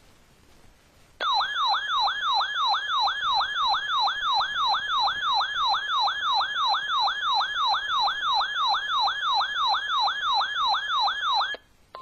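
Weather alert radio sounding its siren alarm for a severe thunderstorm warning: a rapidly repeating falling wail, about three sweeps a second, that starts about a second in and cuts off suddenly near the end.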